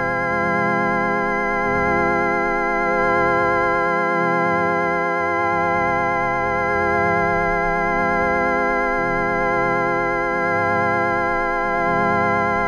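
A 4ormulator v23 electronic sound effect: a sustained, organ-like tone with a slight warble that holds steady in pitch throughout, while lower notes underneath shift every second or so.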